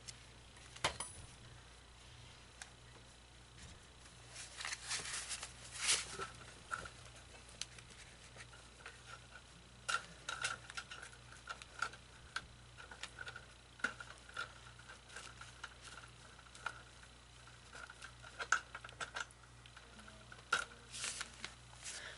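Light handling noises: scattered clicks, taps and rustles, with a faint high tone coming and going in short pulses through the second half.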